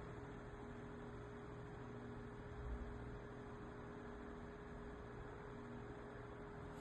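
Faint, steady electrical hum over low room noise.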